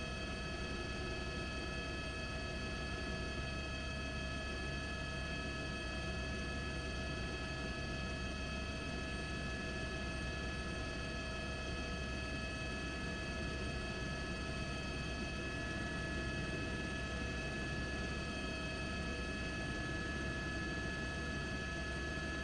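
Helicopter engine and rotor noise picked up aboard the news helicopter: a steady low rumble with several constant high whining tones over it.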